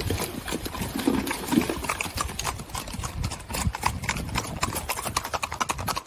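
Hooves of a herd of Icelandic horses clattering on a gravel road as they trot past, a fast run of hoofbeats that grows denser in the second half.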